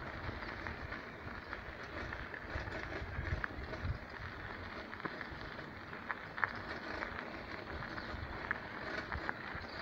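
Wind rumbling on the microphone, with scattered light crunches and clicks from moving along a dirt path.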